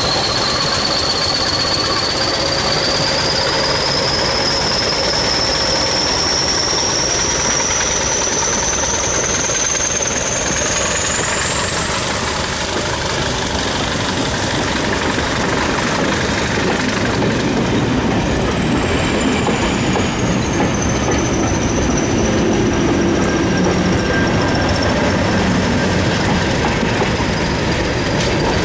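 Diesel-hauled passenger train rolling past at low speed, coaches clattering over the rail joints, with a thin high-pitched whine that rises over the first half and slowly falls away. In the last third the class 37 diesel locomotive on the rear comes close and its engine rumble grows.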